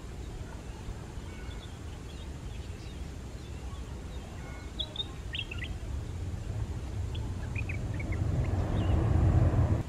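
Airbus A320-family jet airliner rolling out on the runway after touchdown, the low rumble of its engines growing steadily louder and cutting off suddenly at its loudest near the end. Birds chirp over it in the middle.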